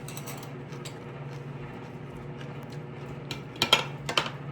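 Eating utensils clinking against dishes: a few light taps, then a cluster of sharper clinks near the end, over a steady low hum.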